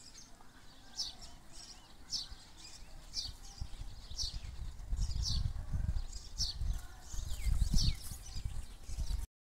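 A small bird chirping over and over, short high notes sliding downward about once a second. From about halfway, a low gusting rumble of wind on the microphone grows and becomes the loudest sound.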